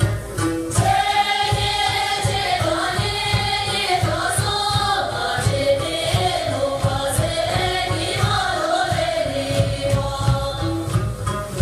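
Group of voices singing a Sherpa dance song in unison over a steady low beat. The singing comes in about a second in and drops away near the end.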